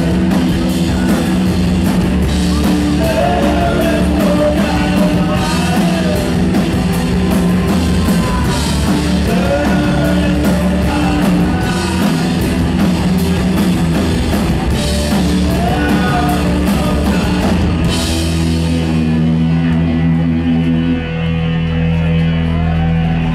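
Rock band playing live: drum kit with crashing cymbals, electric guitars and bass. About eighteen seconds in the drums stop, and held guitar and bass notes ring on.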